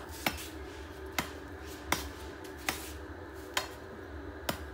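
Machete blade chopping into a coconut's husk on a wooden block: six sharp blows, about one a second, over a low steady hum.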